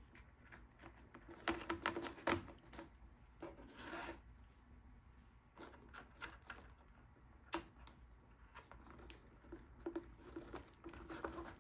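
Small plastic parts being handled and pushed together on a wooden bench: scattered light clicks, taps and rubbing, with a few louder bursts of handling.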